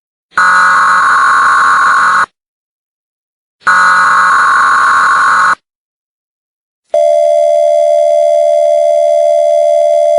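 Emergency Alert System–style alert tones: two harsh buzzing header bursts of about two seconds each, then, about seven seconds in, a long steady alert tone.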